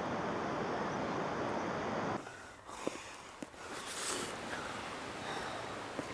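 Steady rushing beach ambience of wind and surf that cuts off suddenly about two seconds in. After that it is quieter outdoor air, with two small clicks and a short breathy sound about four seconds in.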